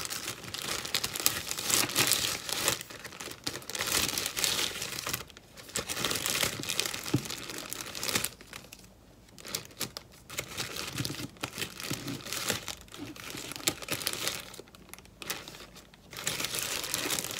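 Paper and sticker sheets crinkling and rustling as stickers are handled for a card, in irregular bursts with a few short pauses.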